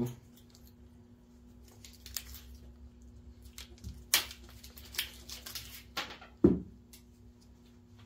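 Corrugated plastic wire loom and a bundled engine wiring harness being handled and pulled back along the wires: scattered crinkles, rustles and clicks, with one louder knock about six and a half seconds in, over a steady low hum.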